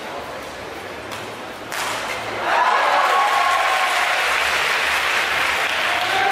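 A couple of sharp racket hits on a badminton shuttlecock end the rally. About two seconds in, crowd applause and cheering swell up and hold.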